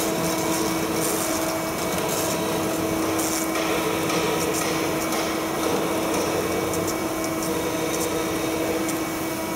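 Makino L2 vertical machining center drilling ductile cast iron with a 10 mm drill under coolant spray. There is a steady spindle tone under a hiss of coolant and cutting noise, broken by brief scratchy bursts.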